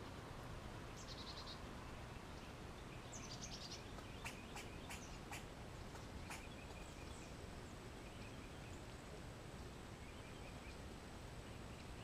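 Backyard songbirds calling around a seed feeder. A short buzzy call comes about a second in and a quick falling series of notes about three seconds in, then a few sharp clicks and faint chips. Under it all is a steady outdoor hiss with a thin high whine.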